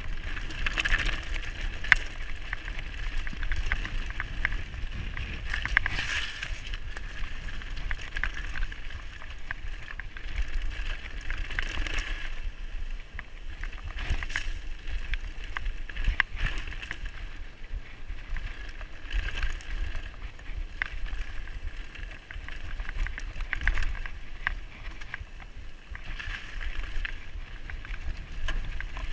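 Mountain bike riding fast down a rough dirt track: tyre noise and the bike rattling, with frequent sharp knocks over bumps and a steady low rumble.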